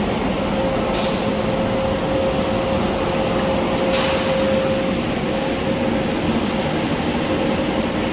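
Steady mechanical drone, an even rush with a constant hum tone, with two brief clicks about one and four seconds in.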